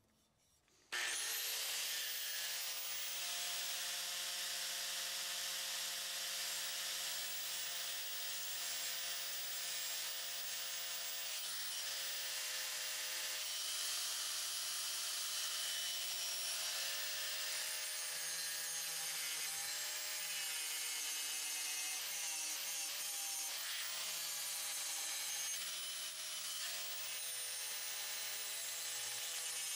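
DeWalt 4-1/2-inch angle grinder spinning up about a second in, then running at speed with a steady whine and a hiss of abrasive on steel as it grinds a hardened file into a knife blade. The pitch dips and wavers several times in the second half as the wheel is pressed into the work.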